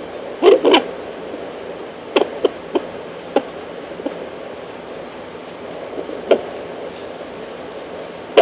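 Fetal doppler's speaker hissing steadily, broken by sudden loud thumps and pops: the fetus kicking and moving against the probe. Two loud thumps come about half a second in, a quick run of smaller knocks follows between two and four seconds, then single thumps near six seconds and at the end.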